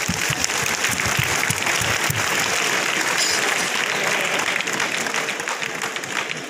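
Audience applauding: a dense clatter of many hands clapping that swells over the first few seconds and dies down near the end.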